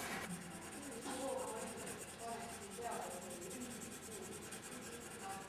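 Graphite pencil scratching across drawing paper in quick, continuous sketching strokes.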